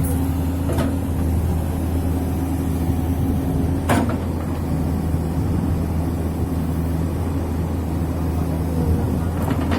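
Komatsu PC200 hydraulic excavator's diesel engine running steadily under work, with three short sharp knocks, the loudest about four seconds in.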